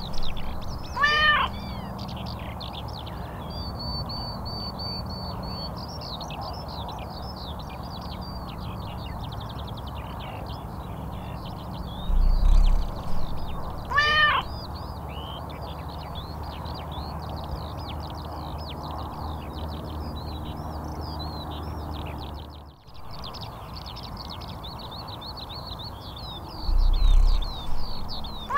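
Domestic cat meowing, two short meows about thirteen seconds apart and a third starting right at the end, over a steady background of many small birds chirping. A deep low thump, the loudest sound, comes twice, each about a second and a half before a meow.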